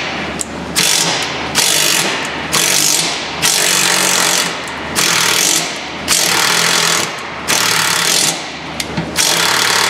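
Cordless impact wrench hammering on the 14 mm carrier bearing bolts of a driveshaft, run in repeated bursts of about a second each to break them loose.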